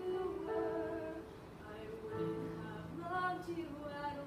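A girl singing a slow solo song with long held notes over a recorded instrumental backing track.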